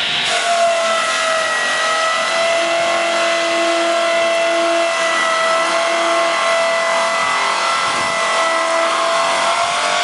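Donaris swing blade sawmill's circular blade sawing lengthwise through a pine log, a steady whine under load over a noisy hiss. A lower hum comes and goes in the middle of the cut and again near the end.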